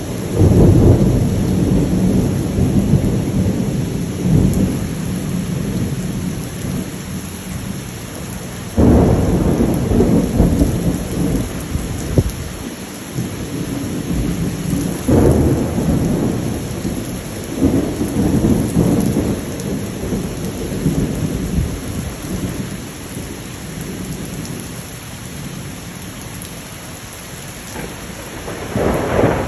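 Heavy rain falling steadily in a thunderstorm. Deep rumbles of thunder swell up several times: sharply about a second in, again around nine seconds and fifteen seconds in, and once more at the very end.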